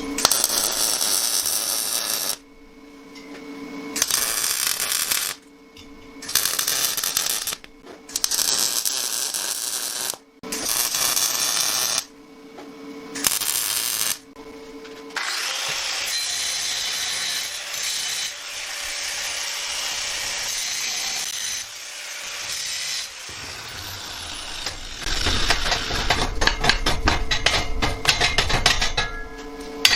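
Power tools working steel square tubing: a series of short bursts of a second or two each, then a steady run of about eight seconds, then a fast rhythmic stretch near the end.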